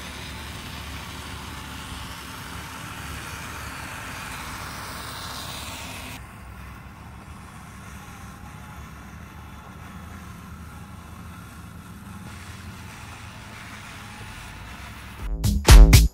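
Steady low motor hum, its character changing about six seconds in. Loud electronic music with a heavy beat comes in about a second before the end.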